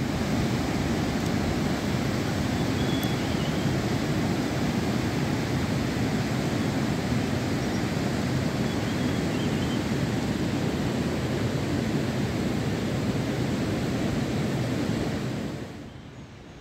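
Steady rushing of a fast mountain stream, an even roar of water without gusts that drops away abruptly near the end.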